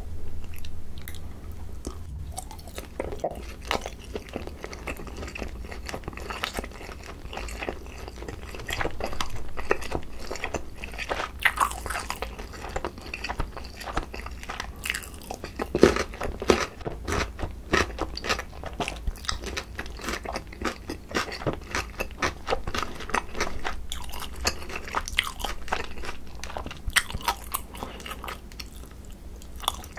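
Close-miked chewing and biting of sauced boneless grilled chicken and pickled radish cubes, with many short, irregular wet clicks from the mouth.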